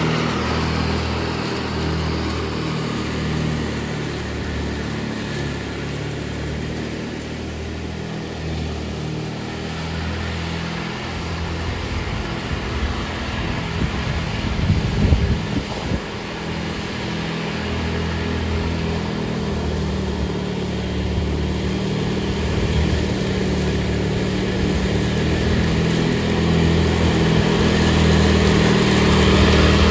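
Riding lawn mower engine running steadily under load, its drone swelling and fading every second or two, with a louder, rougher stretch about halfway through.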